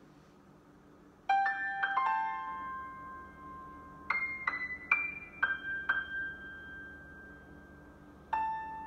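Piano tones from a tablet's touchscreen piano app: a slow melody of single notes and chords that starts about a second in, each note ringing and fading, with short pauses between phrases.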